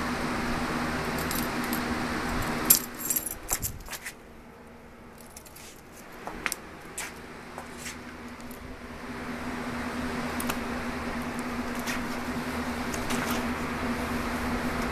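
Light clicks and rattles of a cat batting at a beaded string on a bed sheet, a quick cluster about three seconds in and a few more later. A steady low hum underneath drops out for several seconds and then returns.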